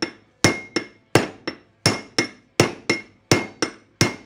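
Hammer blows on the head of a steel bolt, about three a second in a steady rhythm, each with a short metallic ring. The bolt and tube work as a makeshift press to drive a kingpin bushing through a Datsun truck's steering spindle.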